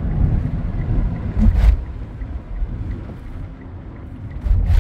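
Inside a moving Kia car coasting in neutral at highway speed: a steady low road and tyre rumble, with two heavy thumps, one about a second and a half in and one near the end.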